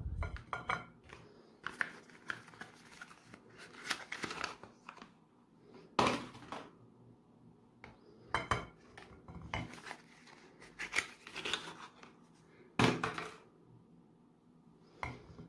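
Hard bars of soap being set down and shifted in a glass dish, with irregular clacks and short scrapes of soap against glass; the sharpest knocks come about six seconds in and again near thirteen seconds.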